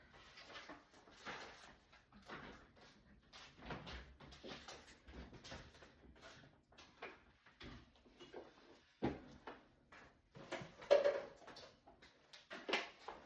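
Items being handled while clearing out a refrigerator: irregular knocks, rustles and clatter of containers and fittings, with a few louder bumps in the second half.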